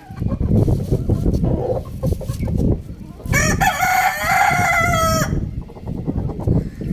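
A rooster crows once: a single call of about two seconds a little past the middle, over a loud, steady low rumbling noise.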